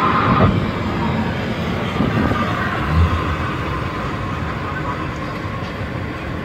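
Steady road and wind noise inside a moving vehicle at speed, with a short low thud about three seconds in.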